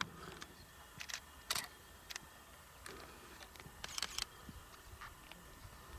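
A few scattered, sharp, faint clicks over a quiet background, about a second apart at first, then another pair about four seconds in.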